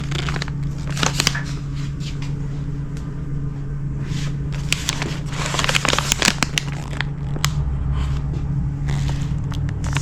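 Sealed plastic bags crinkling and rustling as they are handled, with scattered sharp clicks, over a steady low hum.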